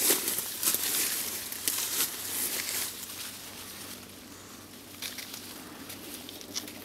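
Leaves and twigs of a medlar tree rustling and crackling as a branch is gripped and bent by hand. The crackling is densest in the first three seconds, then thins to a few scattered crackles.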